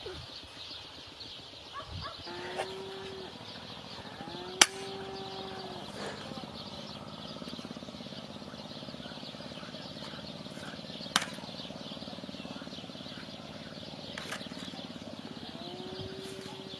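Evening field ambience: crickets chirping steadily, with three short pitched calls and two sharp clicks, one about four and a half seconds in and one about eleven seconds in.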